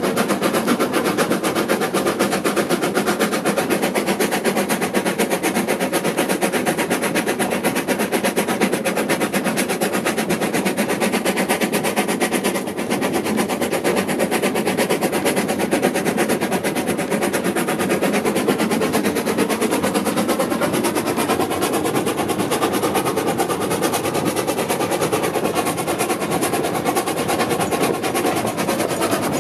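Steam locomotive working along the line, heard from just behind the engine: a loud, rapid, even beat of exhaust chuffs that keeps up steadily.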